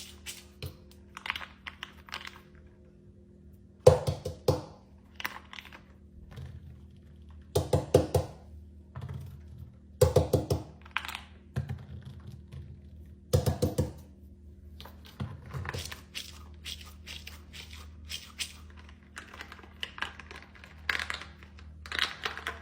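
Fidget toys being handled: bursts of quick clicks, pops and thunks, with a faint steady hum underneath.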